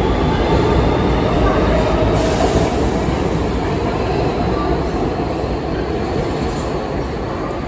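New York City subway F train pulling out of an underground station, its stainless-steel cars rumbling past at close range. The rumble and wheel noise slowly fade as the train gathers speed and moves away.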